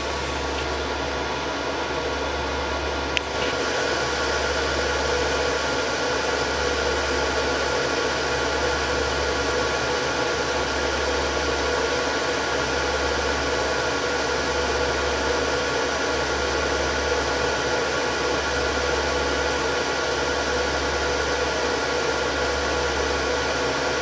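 Heat pump machinery and its variable-frequency drive running: a steady mechanical hum and whir made up of many fixed tones over a low drone. A single click about three seconds in, after which the sound gets slightly louder and hissier and then holds steady.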